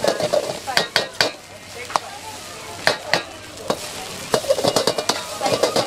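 Fried rice being stir-fried in a wok: a metal spatula scrapes and clanks against the pan at an uneven rhythm, over the sizzle of the frying.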